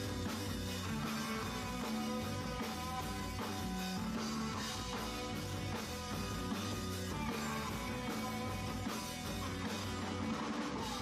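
Punk rock band playing live, with electric guitars and a drum kit.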